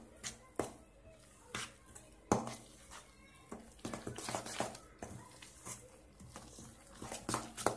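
Grated courgette and flour being mixed by hand in a stainless steel bowl, with irregular knocks and clinks of the metal bowl, the sharpest a little over two seconds in.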